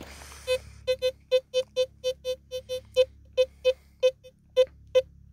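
Teknetics T2 SE metal detector sounding its target tone: a quick string of short beeps, all at the same mid pitch, about three or four a second, as the search coil is swept back and forth over a buried metal target.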